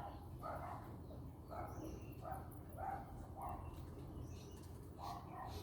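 A distant dog barking over and over, short barks about one or two a second, with a few faint high bird chirps over a low steady rumble.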